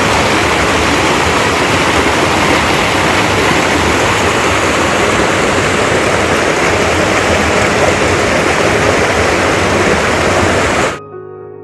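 Steady loud rush of river water pouring over rock ledges in a small waterfall. It starts abruptly and cuts off sharply near the end.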